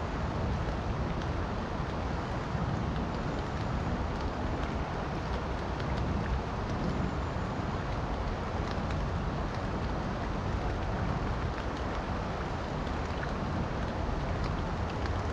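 Steady rushing of river water mixed with falling rain, with scattered faint ticks of raindrops throughout.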